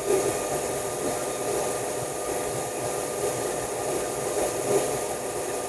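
Hooded hair dryer running, its fan blowing heated air: a steady rush of air with a faint steady hum.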